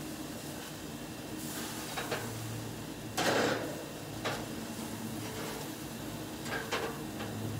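Metal spatula scraping and knocking against a gas grill's grate while burgers are turned: a few short scrapes, the loudest about three seconds in, over a steady low hiss.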